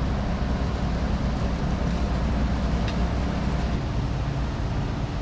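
Steady low rumble of outdoor street background noise, with a faint click about three seconds in.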